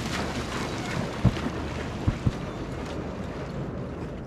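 Hunting dog bounding through shallow marsh water on a retrieve, splashing with each leap. The splashes come in a quick run of heavy strokes and thin out after about two and a half seconds as the dog moves off.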